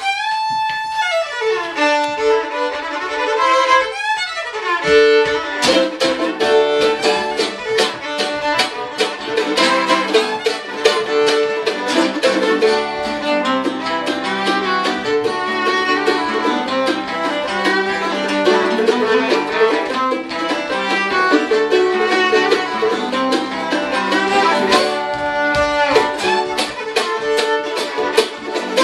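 Fiddle opens a string-band tune alone with sliding notes. About five seconds in, an archtop acoustic guitar and other plucked strings join with a steady strummed rhythm.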